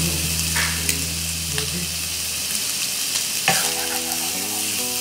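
Chicken pieces in spice paste sizzling in a coated wok over a gas flame while being stir-fried with a spatula. A few scrapes and taps of the spatula against the pan break through the steady sizzle, the sharpest about three and a half seconds in.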